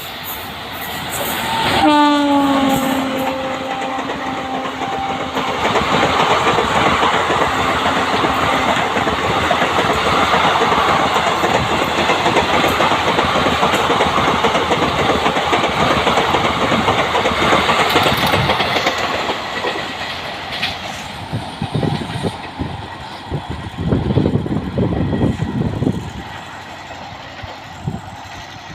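An Indian Railways locomotive horn sounds once for about three seconds, starting about two seconds in. The passenger train then passes close by with a steady rumble and clickety-clack of wheels on rail. After about twenty seconds this fades, leaving a few separate heavy wheel thumps over the rail.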